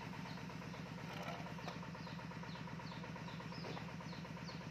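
A small engine running steadily at idle, an even low drone. A short, falling high chirp repeats about twice a second over it.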